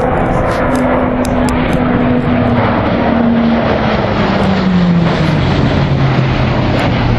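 E-2C Hawkeye's twin turboprop engines and propellers passing close by: a loud steady drone with a propeller hum that falls in pitch from about three seconds in as the aircraft goes past.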